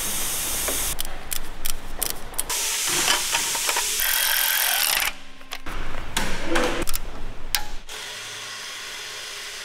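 Workshop tool noise on a bare BMW V8 engine block. For the first few seconds there is a loud hiss that stops and restarts several times. After that come scattered clicks and metal taps as a small ratchet drives bolts into the block.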